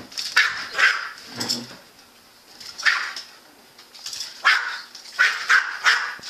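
Small dog barking at a yoyo in a string of short, high, excited barks, about eight of them, with a pause of a second or two in the middle.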